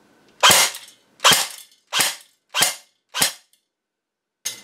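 Airsoft gun shots: five sharp pops about two-thirds of a second apart, BBs striking a paper target, then a fainter sixth shot near the end.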